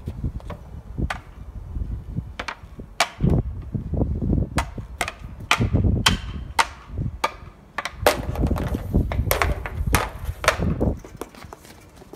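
Hockey stick blade clacking against a puck on concrete as it is stickhandled: a run of sharp, irregular knocks, over a low rumble.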